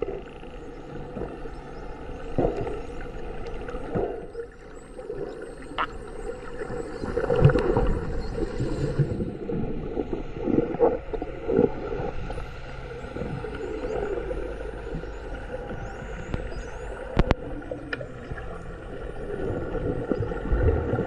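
Whale calls: short low moans, with faint high gliding squeaks now and then, over a steady low rumble.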